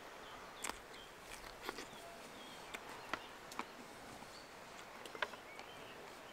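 Quiet outdoor ambience: a low hiss with scattered soft clicks and a few faint short chirps.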